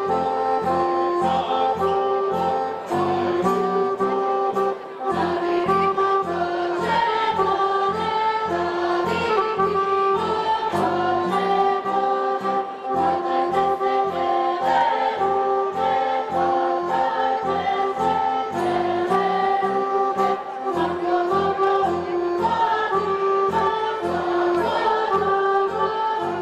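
Montenegrin folk song sung in chorus by the costumed folk ensemble as they dance in a circle, over instrumental accompaniment with a steady, even beat.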